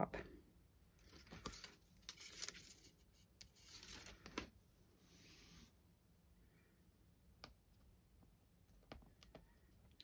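Faint paper rustling and scraping as a cardstock panel is handled and slid round on a craft mat, with a few light taps later on.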